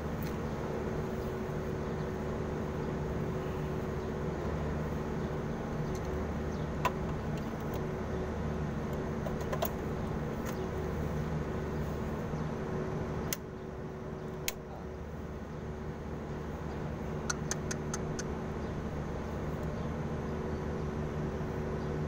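Restored washing-machine wash motor running on a test hookup with a steady electric hum. A few light clicks come from handling the wiring. About two-thirds of the way through the sound dips suddenly, then builds back up over a few seconds after a click.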